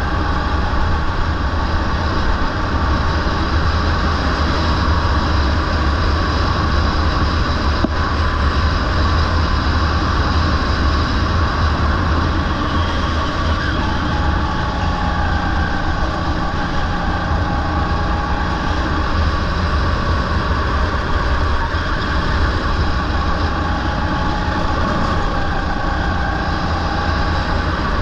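Rental go-kart's small petrol engine running hard at racing speed with a steady, high engine note, and wind buffeting the onboard microphone.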